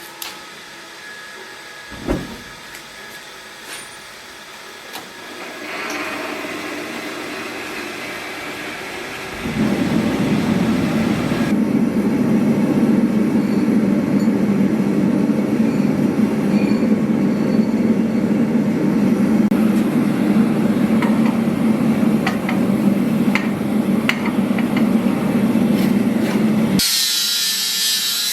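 A steady machine drone that starts about ten seconds in and runs loud and even until near the end, when it stops and a higher rasping tool sound takes over.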